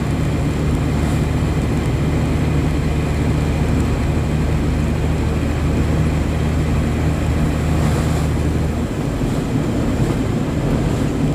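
Dump truck running on the road, heard from inside the cab: a steady low engine drone with road noise. The drone drops away about nine seconds in, as if the throttle is eased or a gear is changed, and the rougher road and engine noise carries on.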